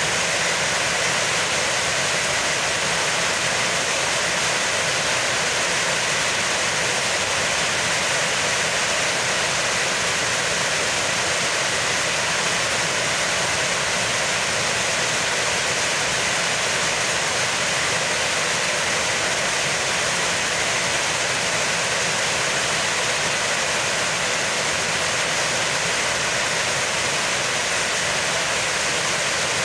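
Heavy rain falling, a dense steady hiss with no change in strength.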